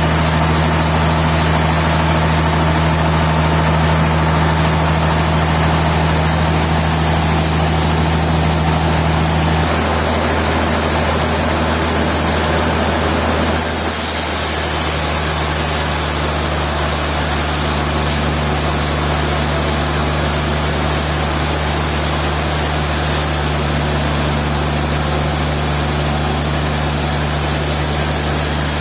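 Sawmill machinery running steadily: a low engine-like hum under a constant hiss. About 14 seconds in the hiss brightens and the hum shifts slightly.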